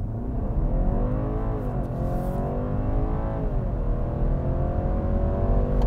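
BMW 330e plug-in hybrid accelerating hard from a standstill. Its drivetrain note rises steadily in pitch, drops twice as the ZF eight-speed automatic upshifts, about two and four seconds in, and climbs again after each shift.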